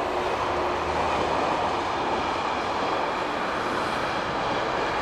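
Freight train hauled by an electric locomotive rolling past, a steady noise of wheels on the rails.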